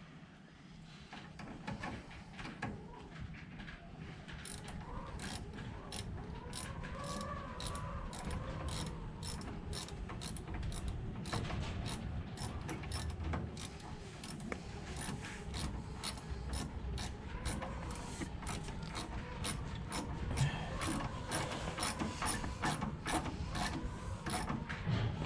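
Hand ratchet wrench clicking in a long, even run of strokes, a couple of clicks a second, as a bolt or fitting is wound in.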